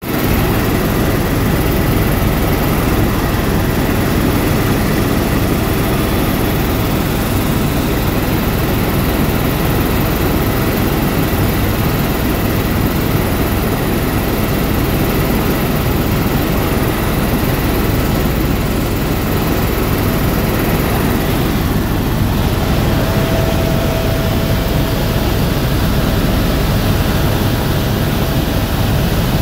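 Helicopter rotor and engine noise heard from inside the cabin in level cruise flight: a loud, even drone heavy in the low end.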